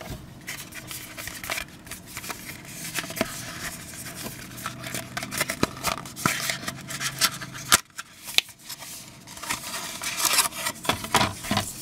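Cardboard phone box being handled: the stiff lid and inner tray scrape and tap as they are moved, then paper leaflets rustle as they are pulled out near the end.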